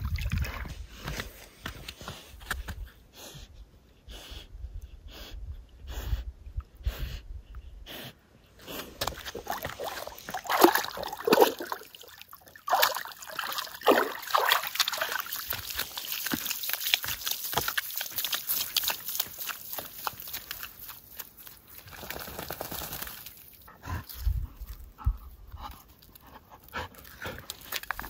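A dog swimming in lake water, its paddling splashing about twice a second. It then climbs out onto rock with water sloshing and dripping, and whimpers a few times.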